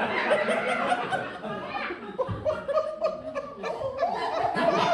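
Audience laughing, many voices at once, swelling again near the end, with a low thump about two seconds in.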